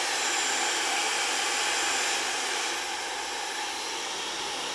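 Dyson Supersonic hair dryer running, a steady rush of air with a faint high whine that drops a little about three seconds in.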